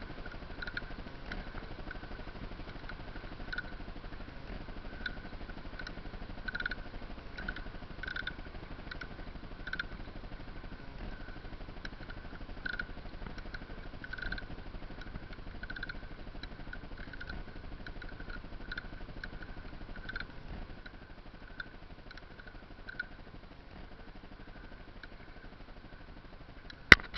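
Pedal drive of a Milha Náutica Líder kayak squeaking rhythmically, one high squeak about every three-quarters of a second with the pedal strokes, dying away about 23 seconds in; a defect in the pedal mechanism that began after a fall into the water. Muffled by the camera's waterproof housing, with a sharp knock near the end.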